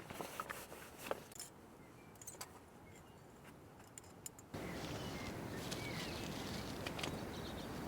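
Scattered clicks and rustles of camping gear being handled. About halfway through, a steady outdoor hiss comes in suddenly, with a few faint chirps.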